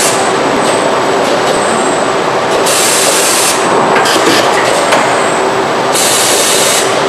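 Robotic welding cell on a car body assembly line: steady loud machine clatter, with a short high hiss about every three seconds.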